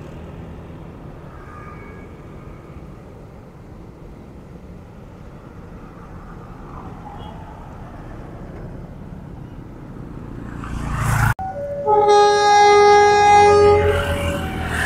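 A steady low background rumble swells, then breaks off abruptly. A train horn follows with one long blast of about two seconds, then the low rumble of the train.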